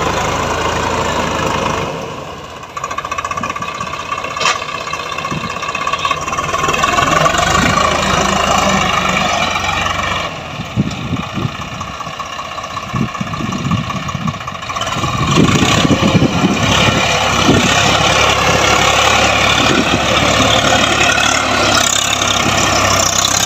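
Swaraj 855 FE tractor's three-cylinder diesel engine running under load while driving a PTO-powered rotary tiller through the soil. Its level dips briefly about two seconds in and again in the middle, and it is loudest over the last third.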